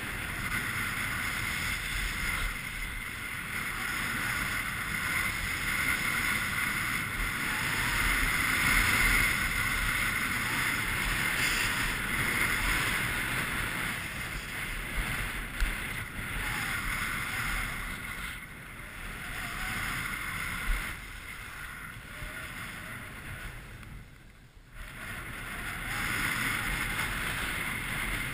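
Steady rush of wind over a GoPro's microphone together with the hiss and scrape of skis sliding and carving on packed snow during a fast downhill run. The noise swells and fades with the turns and drops away briefly near the end.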